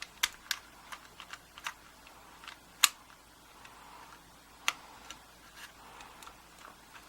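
Irregular small metal clicks and taps, about a dozen, two of them sharper near the middle, from a 2-in-1 lever pick working the levers and bolt of a 5-lever mortice lock while it is being picked back to the locked position.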